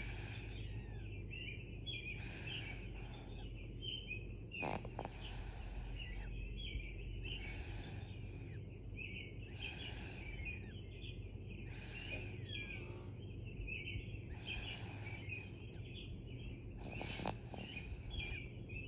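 Slow, regular snoring, about one breath every two and a half seconds, each a soft noisy swell with a faint high whistle, in a relaxed sleeping rhythm.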